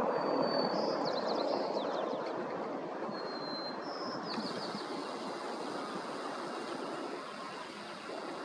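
Turboprop engine of a Harbour Air DHC-3 Turbo Otter floatplane winding down at the dock, its rushing hum fading steadily. A few short, high chirps come in the first half.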